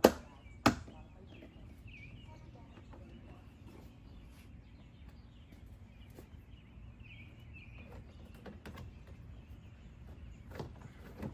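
Two sharp bangs about two-thirds of a second apart at the very start, the first the louder, from the Chevy Silverado's door being shut while the new handle is tested. After that, a few faint clicks and birds chirping.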